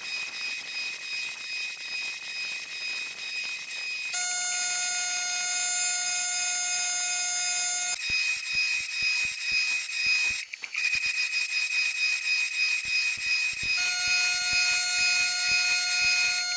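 CNC router spindle whining steadily as its end mill cuts HDPE (polyethylene cutting-board) plastic. A second, lower steady tone joins for a few seconds, twice, and between those stretches the cut comes through as irregular ticking.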